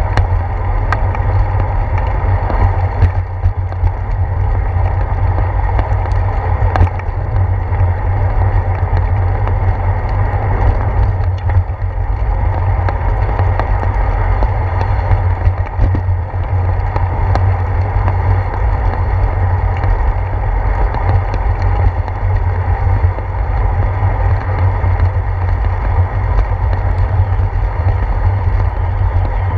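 Bicycle ride on a wet paved path heard through a handlebar-mounted GoPro: a steady low rumble of wind and road vibration with tyre hiss and a few small clicks.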